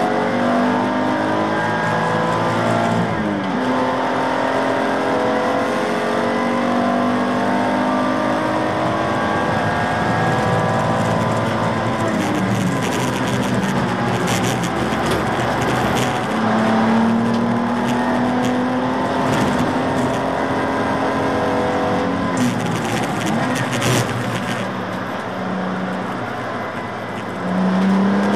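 BMW Z4 Coupe race car's engine heard from inside the cockpit at racing speed, the revs climbing through the gears and falling under braking and downshifts several times, over wind and road noise.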